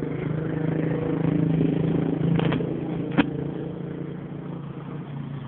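A motor vehicle's engine running close by, steady in pitch, growing louder over the first two seconds and then fading away. Two sharp clicks come about two and a half and three seconds in.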